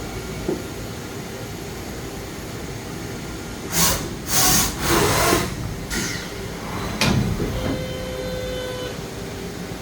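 DMG Mori NHX5500 horizontal machining center running with a steady hum. About four seconds in come three or four loud hissing bursts. About seven seconds in there is a sharp clunk, followed by a short steady whine that stops near the end.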